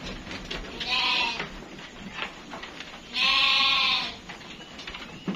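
Dorper-cross sheep bleating twice: a short bleat about a second in, then a longer, louder one around the third second. Faint clicking and rustling can be heard between the calls.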